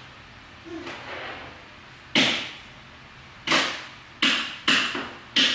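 Cloth hockey tape pulled and peeled by hand: five short, sharp rasps, the first about two seconds in and the rest coming faster toward the end, with a fainter one about a second in.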